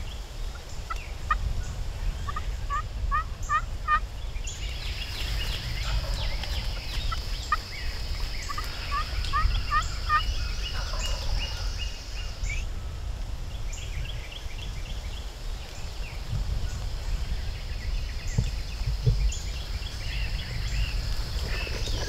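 Wild turkeys gobbling several times, each gobble a quick run of short notes. There is a steady high-pitched background sound through the middle and near the end.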